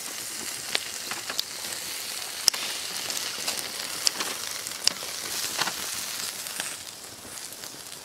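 Pork belly sizzling on a wire grate over a charcoal grill: a steady frying hiss with a few sharp clicks and pops, easing a little near the end.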